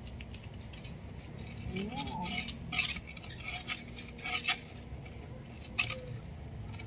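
Long-handled digging tool striking and scraping into soil around a plant's roots: several irregular chops and scrapes, the sharpest about four and a half seconds and six seconds in.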